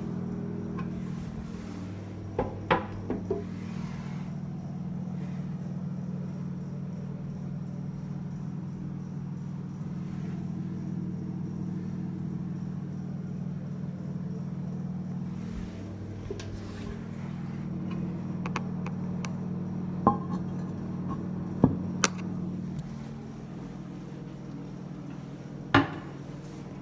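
Hard clinks and knocks of a ceramic cistern lid on a 1970s Twyfords Classic cistern, lifted off a few seconds in and set back down about twenty seconds in, with a single knock near the end. A steady low hum runs underneath.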